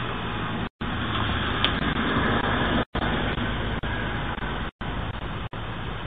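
Steady outdoor noise heard through a Ring doorbell camera's microphone, thin and muffled, cutting out completely for a moment four times.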